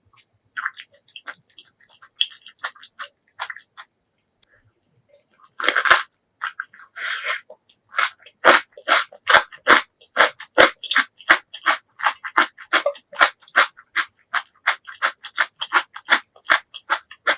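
Close-miked chewing of crunchy food: a few soft mouth clicks, two longer crunching bites around the middle, then steady rhythmic crunches, about two to three a second.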